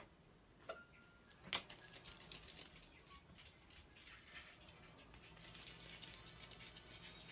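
Faint food-handling sounds on a steel work surface: a sharp knock about one and a half seconds in, then soft rustling of gloved hands rolling dough into balls.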